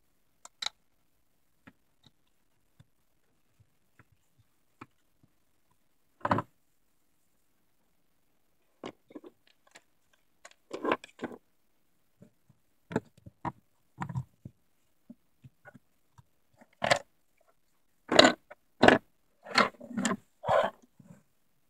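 Sped-up clatter of plastic Play-Doh tubs, lids and tools being picked up and set down on a wooden table: scattered short clicks and knocks, busier and louder in the last few seconds.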